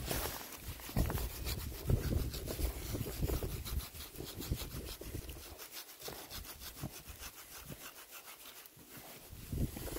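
A hand scratching the coarse, bristly coat of an Oxford Sandy and Black sow close to the microphone, making quick rhythmic rasping strokes, heavier in the first few seconds.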